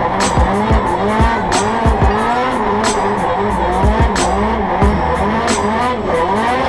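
Drift car engine revving up and down over and over under hard throttle, with tyres squealing, heard from inside the stripped cabin.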